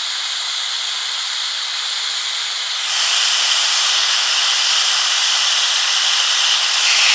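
BernzOmatic TS8000 hand torch on a propane cylinder, its flame hissing steadily as it heats the tip of a steel file. The hiss grows louder about three seconds in and again near the end.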